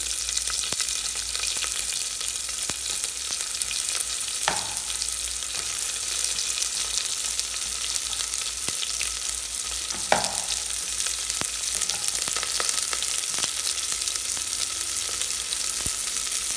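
Sliced onions sizzling in hot oil and ghee in an aluminium pressure cooker, a steady frying hiss with fine crackles as they sauté. Two sharp knocks come about four and a half and ten seconds in.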